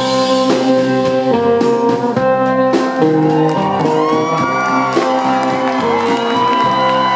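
Live band playing an instrumental passage, held notes over a steady accompaniment.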